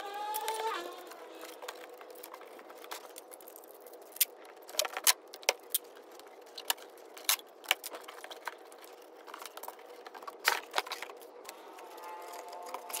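Packing tape being pulled off a handheld tape dispenser, a short rising screech in the first second, followed by scattered sharp clicks and taps as the tape is cut and the cardboard boxes are handled.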